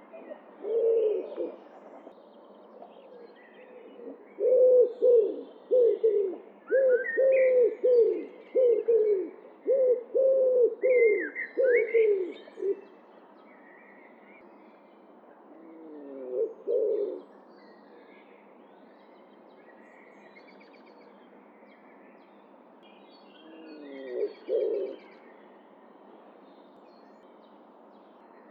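Common wood pigeon cooing: one deep coo near the start, then a run of about a dozen rhythmic coos lasting some eight seconds, and two short coo phrases later on. Small songbirds chirp faintly in the background.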